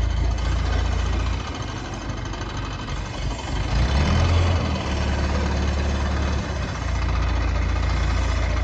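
Heavy diesel engine running at idle, its low rumble easing off about a second and a half in, picking up again around four seconds and settling back near the end.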